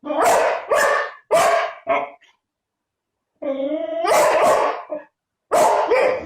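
A dog barking repeatedly: a quick run of about four barks, then a longer drawn-out bark and one more near the end.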